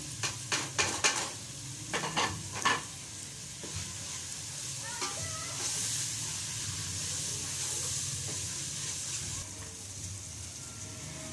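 A metal spoon stirring and knocking against an aluminium pot, with a quick run of knocks in the first three seconds. Under it an onion-and-tomato masala, with dry spices just added, sizzles as it fries in oil, a steady hiss that swells in the middle of the clip.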